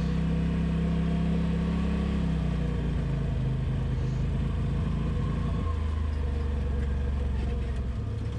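Polaris RZR Pro XP side-by-side's engine running in a steady drone, its pitch dropping about two and a half seconds in and again near six seconds as the revs ease off.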